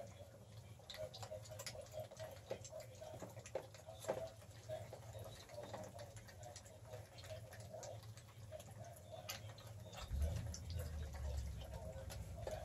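Five-week-old Catahoula Bulldog puppies lapping and chewing a wet mash of milk, hamburger and dry kibble from a shared dish: a steady run of small wet clicks and smacks. A low rumble comes in about ten seconds in.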